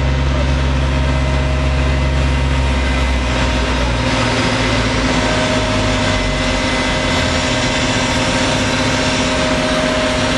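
Shotcrete spraying rig's engine running steadily under load, with the hiss of wet concrete blasting from the nozzle onto the wall. The deepest part of the engine note falls away about four seconds in.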